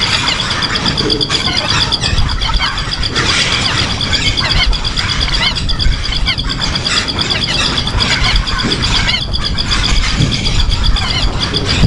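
Birds chirping in many short, arching calls over a steady, rapidly pulsing insect-like trill, with a low rumble underneath.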